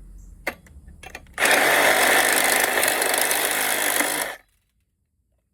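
Milwaukee power saw cutting brass off a copper valve: a couple of clicks, then about three seconds of steady running through the metal before it stops suddenly.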